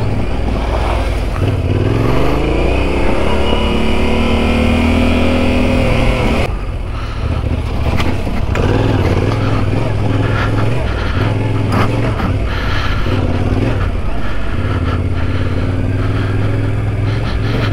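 Yamaha Ténéré 700's parallel-twin engine under way, climbing steadily in revs for about five seconds, then dropping sharply about six and a half seconds in as the throttle closes, and after that rising and falling with the throttle.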